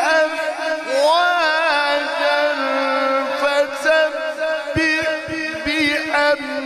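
A man's solo Quran recitation in the melodic mujawwad style: long held phrases whose pitch sweeps up and down in ornamented runs. A few soft low knocks come about five seconds in.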